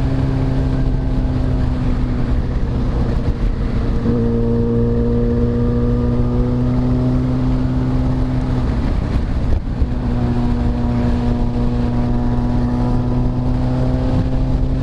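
Motorcycle engine running steadily while riding. Its note steps up about four seconds in and breaks off briefly around nine to ten seconds in before settling again.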